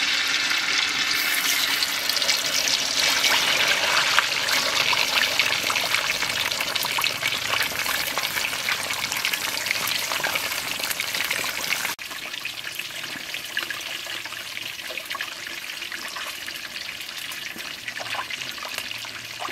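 Snakehead fish deep-frying in a wok of hot oil: a steady sizzle packed with fine crackles. It drops a little in loudness about twelve seconds in.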